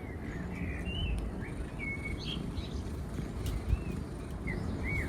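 Small birds chirping in short, high, curling notes scattered through, over a steady low outdoor rumble, with a single sharp click past the middle.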